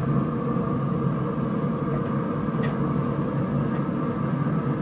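Pit Boss Pro Series pellet grill running at cooking temperature, its fan giving a steady, even hum, with one light click about two and a half seconds in.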